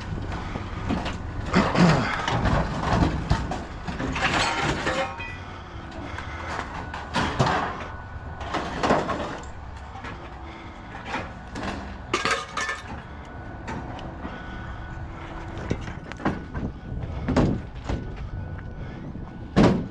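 Hand work on metal scrap: irregular scraping, knocking and clinking as a length of Romex electrical cable is tugged and worked loose from a steel piece, over a steady low rumble.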